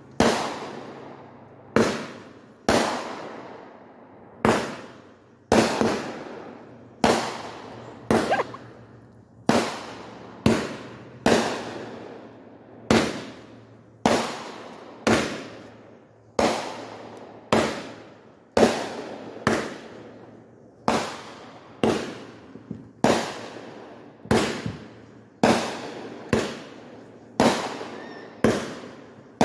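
Aerial fireworks going off in a long steady run, one sharp bang about every second, each trailing off before the next.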